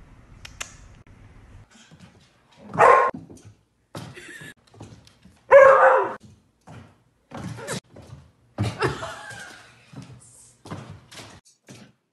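A dog barking in short, loud bursts, the loudest about three and six seconds in, with several more barks and a few knocks and thumps between them.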